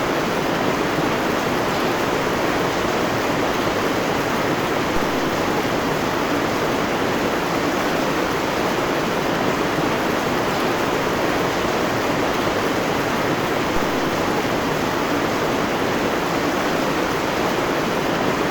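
Heavy rain pouring steadily on forest foliage: an even, unbroken rushing hiss.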